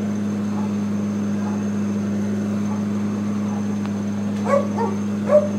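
Carpet-cleaning extraction machine running with a steady low hum, with a few short dog-like yelps near the end.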